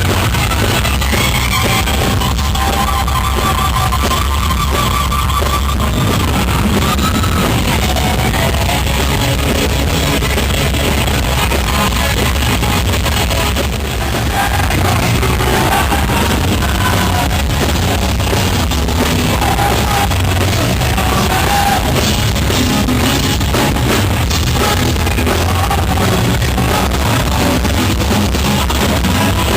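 Live hard-rock band playing, with electric guitar lead lines over drums and bass. It is a loud, bass-heavy, muddy audience recording.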